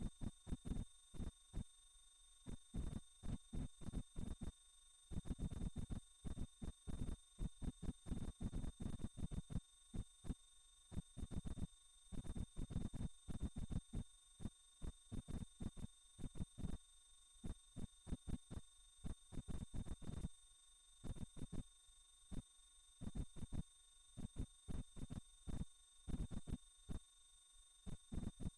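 Electronically generated sine-wave tone of a sound-healing frequency track: one very high-pitched steady tone whose loudness pulses evenly a few times a second.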